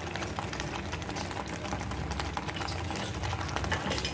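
Ground onion and spice masala paste bubbling and sizzling in hot oil in a kadhai, with many fine crackles and a low steady hum underneath.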